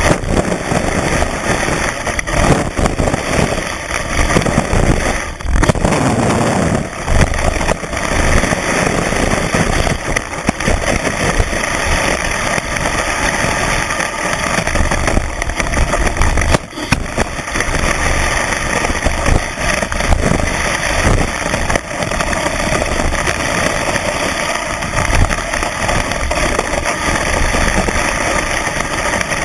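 Skis running fast over packed snow, heard from right on the ski: a steady, loud scraping hiss and rumble with constant chatter, and a couple of brief dips where the noise drops away.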